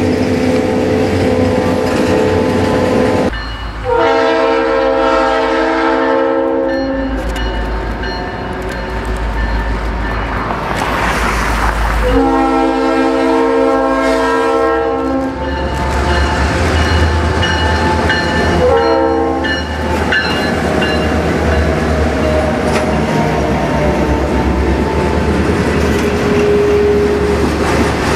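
Multi-chime diesel locomotive horn blowing for a crossing: held blasts of several tones at once, two long ones and a short one about 19 s in. Then the EMD diesel engine of the passing South Shore Freight locomotive rumbles low, with freight car wheels clattering over the rail joints.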